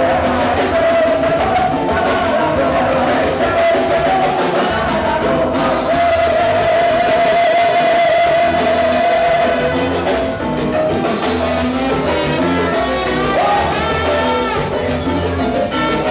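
A live Latin dance band playing, with drum kit, hand percussion, bass guitar, keyboard, trumpet and singing. A long held note runs through the first half, then shorter melodic lines take over.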